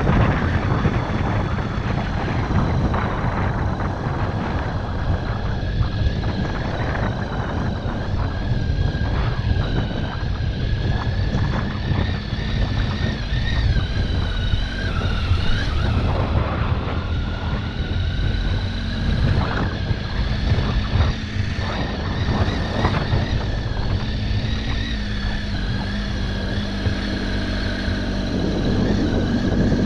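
Triumph Tiger XC's three-cylinder engine running steadily as the motorcycle rides a dirt track, with wind rushing over the microphone. The engine note shifts briefly about halfway through, then settles again.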